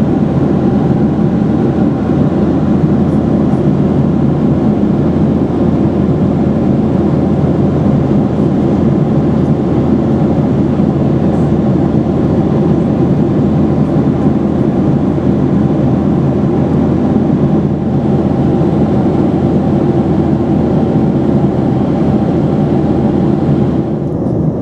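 Steady engine and airflow noise inside the cabin of a Boeing 737-800 with its CFM56 turbofans running, heavy in the low end and even in level.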